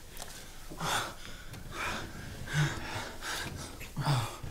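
Two people breathing heavily and gasping while kissing, a breath about every second, with a couple of short low murmurs near the middle and the end.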